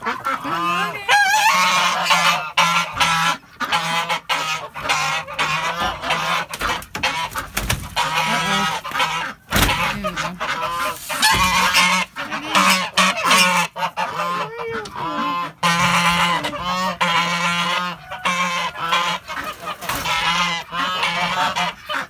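A flock of white domestic geese honking nonstop, many loud calls overlapping.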